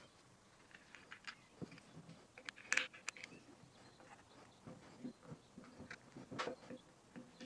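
Faint scattered clicks and small knocks of a Spohr L562 revolver being handled as its laminated-wood grip panels are taken off, with a cluster of louder clicks about three seconds in.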